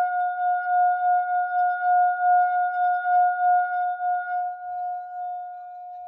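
Himalayan singing bowl ringing after a strike: one steady, clear tone with fainter overtones, its loudness wavering in a slow pulse. It fades somewhat in the last seconds and cuts off abruptly at the end.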